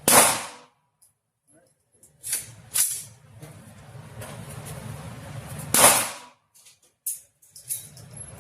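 Gunshots at an outdoor range, five irregularly spaced shots, each cracking and ringing out briefly. The loudest come right at the start and at about six seconds, with weaker ones in between.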